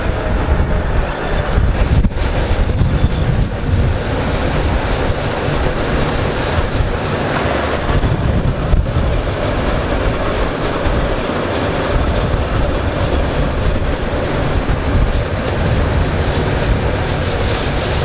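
Farm machinery running steadily: a heavy engine's low rumble with mechanical rattle, and wind buffeting the microphone.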